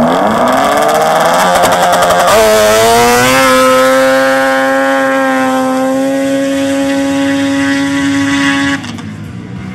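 Ski-Doo Mach 1 snowmobile's two-stroke engine launching at full throttle: its pitch climbs in two rises over the first three or so seconds as the sled accelerates, then holds steady and high as it runs down the track. The sound drops away sharply near the end.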